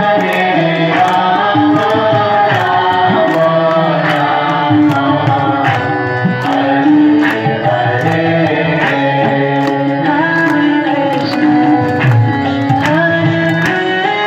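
Devotional song with tabla drumming and a crowd clapping along to a steady beat.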